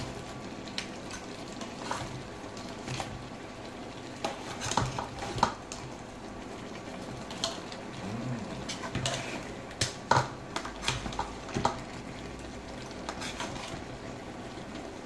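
A utensil stirring crab pieces in coconut sauce in an aluminium pot: irregular clinks, knocks and scrapes against the pot and the crab shells, over a light sizzle from the simmering sauce.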